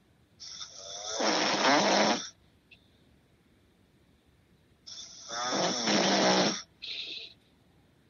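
Loud snoring in sleep: two long snores about four seconds apart, each beginning as a breathy hiss and turning into a deep rattle. A short breath follows the second snore.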